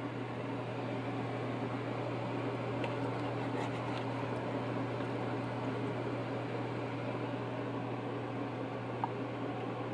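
Steady mechanical hum with a constant low drone underneath, with a few faint clicks and one sharper click about nine seconds in.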